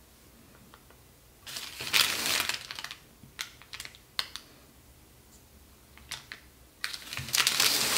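Razor blade of a bread lame scoring the floured skin of a sourdough loaf: two stretches of crackly scratching, one about a second and a half in and one near the end, with scattered small clicks between.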